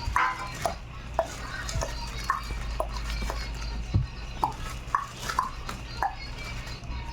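Irregular light clinks and taps, about one or two a second, some with a short ring, over a steady low hum, as hard parts are handled.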